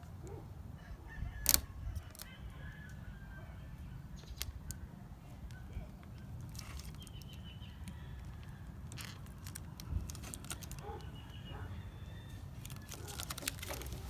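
Quiet handling sounds of an adhesive plastic emblem letter being peeled from its backing and pressed onto a truck tailgate, with a few sharp clicks, the loudest about a second and a half in, over a low steady hum. Faint bird calls come and go in the background.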